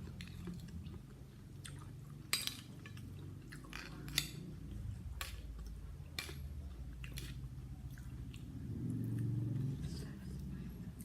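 A person chewing and biting into blue swimmer crab, with a few sharp clicks, the loudest about two and four seconds in.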